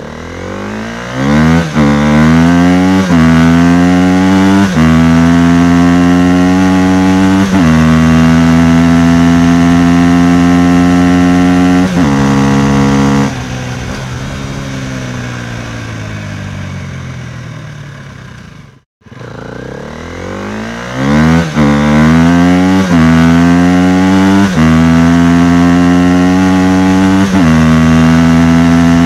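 Motorcycle engine pulling away through the gears: the pitch climbs and drops back at each upshift, then holds steady at cruising speed. About halfway the throttle closes and the engine winds down, cuts off sharply for a moment, then accelerates up through the gears again.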